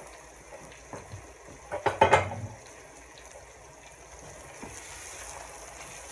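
An orange slotted spoon stirring chopped tomatoes, onion and garlic in a non-stick frying pan, with a quick run of knocks and scrapes against the pan about two seconds in. The vegetables fry with a faint sizzle underneath.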